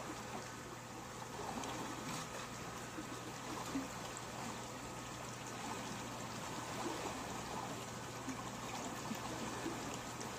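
Turbine discharge water rushing out from under a hydroelectric powerhouse and flowing down the tailrace channel as a steady stream, with a faint steady hum underneath.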